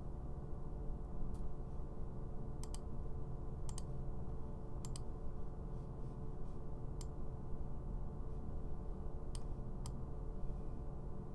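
Computer mouse clicking: a handful of sharp clicks spread out, three of them quick double clicks, over a steady low hum.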